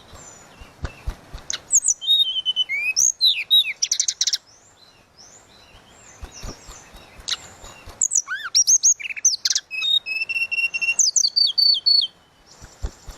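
Tledekan laut (mangrove blue flycatcher) singing in its clear, flute-like style: two long bouts of high whistled notes, slurred glides and rapid runs, with short pauses between them.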